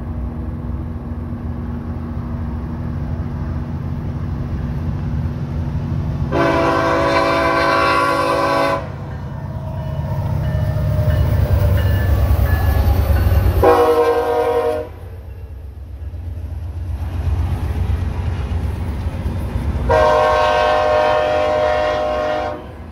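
Diesel locomotive horn on a passing EMD SD70ACe, sounded in three blasts: long, short, long. Beneath it runs the low rumble of the locomotive's engine, loudest as it goes by, then the train rolling past.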